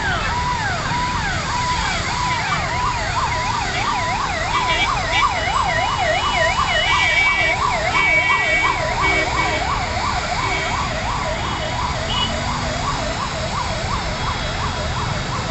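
Emergency-vehicle electronic sirens sweeping rapidly up and down in pitch, two or more overlapping, fading toward the end. A few short higher beeps come in around the middle, over a steady low rumble.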